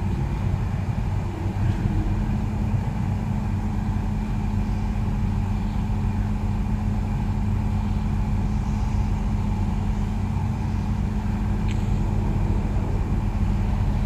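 Steady running drone of a 2011 Suzuki SX4's 2.0-litre engine idling with the climate-control blower on, heard from inside the cabin. An extra steady hum joins about two seconds in and holds.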